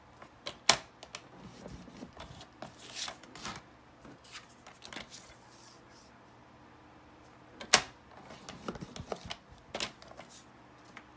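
Cardstock being scored on a paper trimmer: the scoring carriage slides along the rail and the card is pressed and shifted on the board, with two sharp clicks several seconds apart as the loudest sounds.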